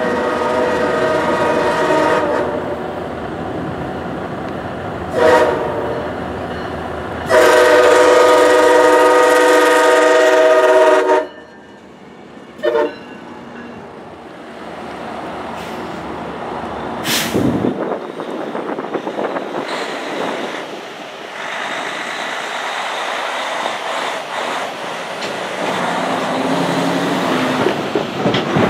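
MARC MP36PH-3C diesel locomotive sounding its horn for a grade crossing: a long blast, a short toot about 5 seconds in, another long blast, and a short toot about 12 seconds in. After that comes the locomotive's EMD 16-645 diesel engine and its wheels on the rails, getting louder in the last third as it runs past.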